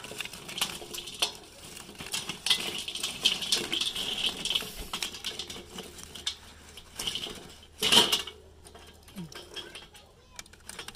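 Utensils and dishes clinking and clattering in many small, irregular knocks, loudest about eight seconds in.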